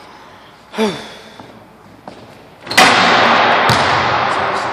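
A basketball striking the glass backboard and rim of a gym hoop: one loud bang about three seconds in, followed by a long echo through the hall. Before it, about a second in, there is a brief falling-pitched sound.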